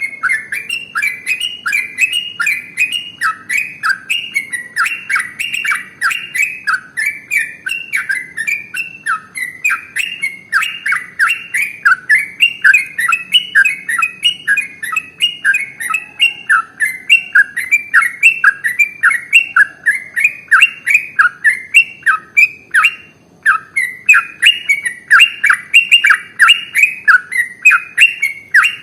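Yellow-vented bulbul (trucukan) singing a long, unbroken run of rapid repeated chattering notes, about three a second, the continuous 'ropel' song, with one short break about 23 seconds in.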